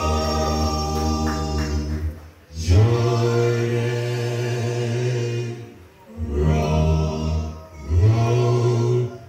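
Men's a cappella vocal group singing in close harmony through handheld microphones: long held chords, each broken off briefly about two, six and eight seconds in before the next begins.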